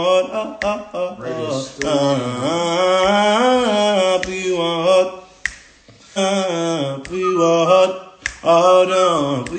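A man singing unaccompanied, melodic runs with long held notes that slide up and down in pitch, a short break about halfway through, picked up by a phone's microphone. A few sharp clicks fall between the phrases.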